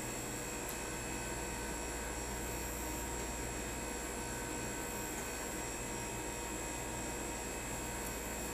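Steady hum and fan hiss of air-conditioning equipment running, with a few faint, high, steady whining tones over it.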